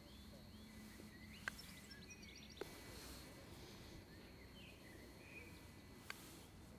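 Near silence: faint outdoor background with a few distant bird chirps and three faint sharp ticks.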